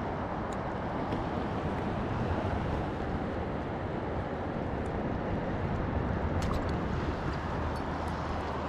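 Steady rush of a fast-flowing river current, an even noise without pauses or changes.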